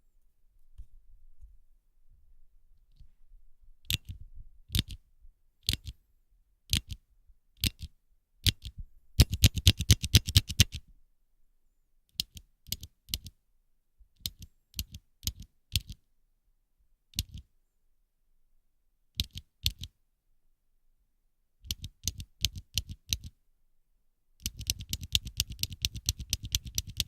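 Handheld stapler clicking shut over and over: single snaps about a second apart, then quick runs of rapid clicks, with the longest fast run near the end.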